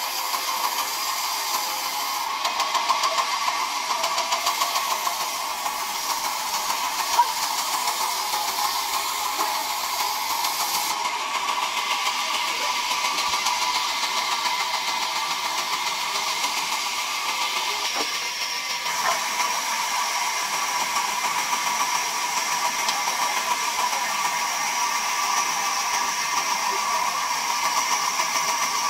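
Large sawmill band saw running with a steady whine as a log is fed through its blade.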